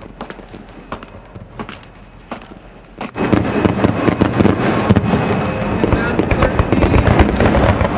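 Crackling and popping: scattered sharp pops at first, then a sudden swell about three seconds in to a dense, loud crackle over a low rumble.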